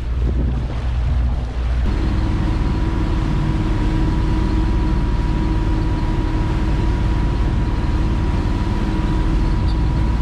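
Sea Ray Sundancer 370 motor yacht's engines running steadily underway. About two seconds in the sound shifts and a steady whine joins the drone.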